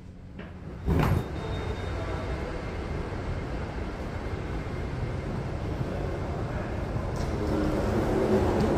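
Elevator doors sliding open with a short loud clunk about a second in, letting in the steady hum and hiss of a large, echoing airport station hall, with faint voices near the end.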